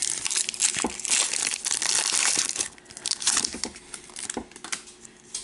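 Pokémon booster pack's foil wrapper crinkling loudly as it is torn open and handled for about two and a half seconds, then a shorter burst of crinkling a little later.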